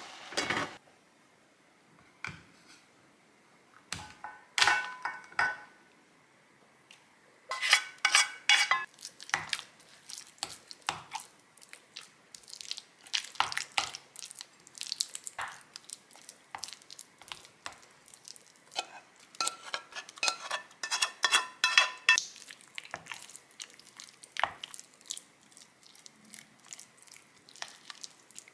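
A spatula scraping and clinking against bowls: a brief stir of cooked-down strawberries in a pot, then thick Greek yogurt being folded together with fruit compote in a glass mixing bowl. The clinks and scrapes are sparse for the first several seconds and then come thick and uneven.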